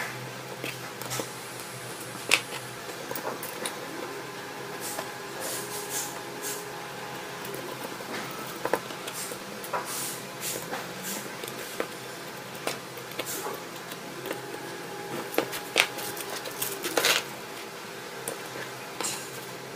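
Small metal chassis plates and screws handled on a tabletop: scattered light clicks and knocks as the parts are picked up and fitted together.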